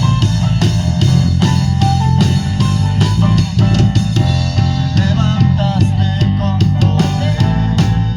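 Live band playing an instrumental passage: drum kit keeping a steady beat over bass and guitar.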